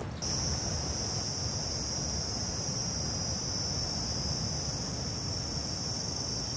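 A steady, high-pitched insect chorus buzzing without a break, starting about a quarter second in.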